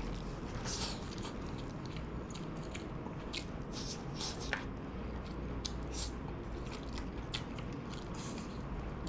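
A person chewing and biting food close to the microphone: irregular small crunchy and wet mouth sounds over a low steady hum.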